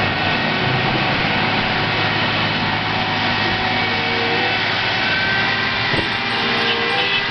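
Hino 500 water tanker truck's diesel engine running steadily as it rolls slowly, under the hiss of water jetting from its front spray nozzles onto the road.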